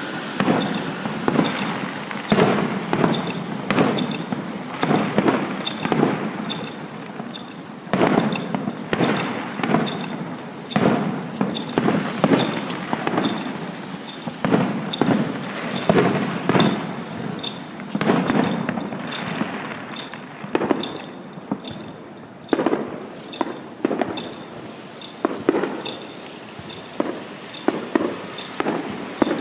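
Fireworks going off in a long, irregular run of sharp bangs and cracks, several a second at times, each trailing off briefly.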